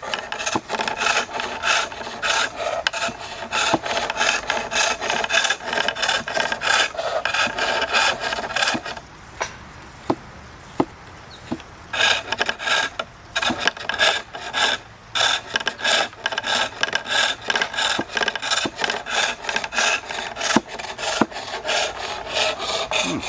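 A turning tool cutting red oak on a treadle-driven pole lathe: rhythmic scraping strokes, about three a second, as the reciprocating work spins against the blade, with a break of about three seconds midway. The oak is not fully green, so it comes off in small chips rather than long ribbons.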